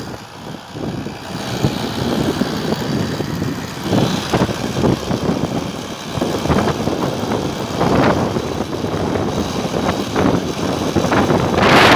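Ride noise from a small-wheeled electric bike driven by a converted washing-machine BLDC motor: wind buffets the microphone in gusts over a steady rolling rumble, with occasional knocks.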